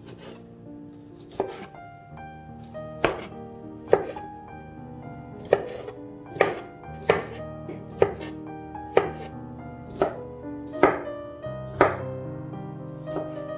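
Kitchen knife chopping broccoli florets on a wooden cutting board, a sharp chop about once a second, over soft background music.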